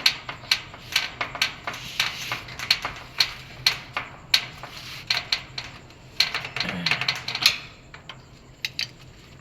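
A rapid, irregular run of sharp metallic clicks and clacks, two to four a second, thinning out near the end, from small tools and metal parts being handled during a repair.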